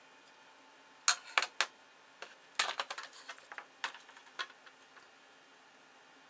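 Clicks and knocks of hard plastic being handled as the opened kitchen scale's base and circuit board are moved. Three sharp clicks come about a second in, then a busier run of taps and rattles lasting about two seconds.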